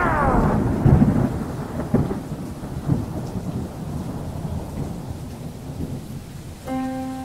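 A deep, thunder-like rolling rumble with a rain-like hiss, fading away, with deep booms about one, two and three seconds in. Near the end a held musical note starts.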